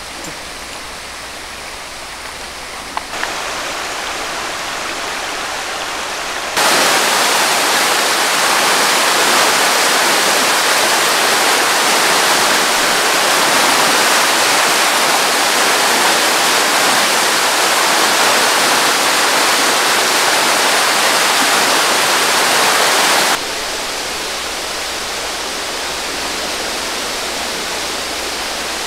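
Floodwater rushing through a swollen creek, a steady even rushing noise. It jumps much louder about a quarter of the way in and drops back a step near the end.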